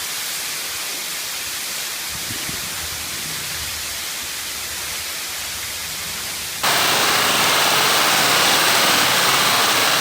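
Waterfall's rushing water, a steady hiss. About two-thirds of the way in it cuts abruptly to a louder, brighter rush, as if heard from closer to the falls.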